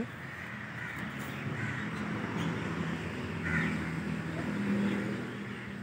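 Crows cawing a couple of times over a steady low hum and outdoor background noise.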